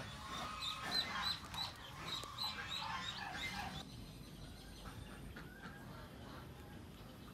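Animal chirping: short high chirps repeating about three times a second, with a few lower sliding calls. The chirps stop abruptly about four seconds in, leaving only a faint, steady rural background.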